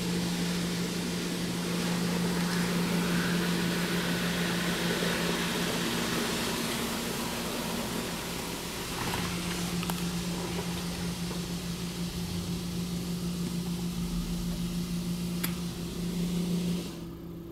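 PDQ tandem automatic car wash in its rinse-dry cycle, heard from inside the car: a steady rush of water spray and dryer air over the car with a steady low hum. The rush and hum cut off sharply near the end.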